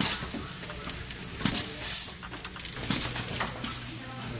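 Pneumatic automation equipment running: a handful of sharp clicks and short air hisses over a steady low hum.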